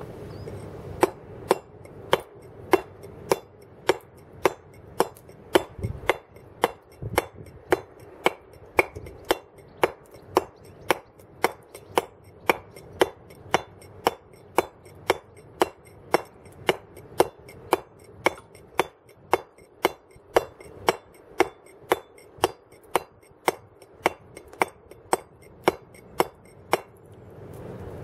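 Round wooden carver's mallet striking a chisel into a block of stone, a steady run of sharp taps about two a second, roughing out the basic profile of a carving. The taps start about a second in and stop shortly before the end.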